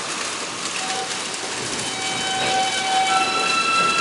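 An R160B Alstom subway train starting to pull out of the station over a steady hiss. From about a second in, several high whining propulsion tones sound, each holding a pitch and then giving way to another at a new pitch.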